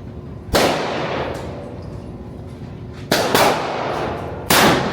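Four gunshots at a shooting range: one about half a second in, a quick pair about three seconds in, and another near the end. Each is a sharp crack with a long echoing tail.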